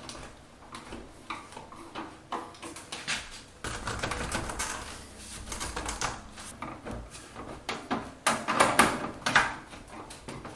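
Hand-fitting of black stovepipe sections: scattered clicks and light metallic knocks, a scraping stretch about four seconds in, and a cluster of louder knocks near the end.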